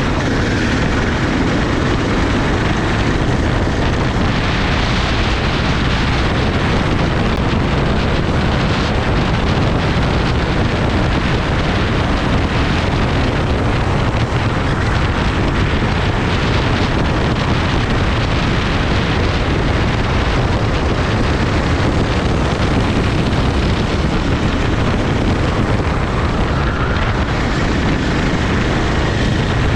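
Racing kart's engine running on track, its pitch rising and falling, largely buried under steady wind noise on the microphone.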